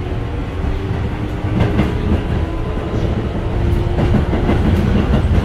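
Keio 7000 series electric train running at speed, heard from inside the passenger car. There is a steady low rumble with a faint steady whine over it, and now and then the wheels click over rail joints.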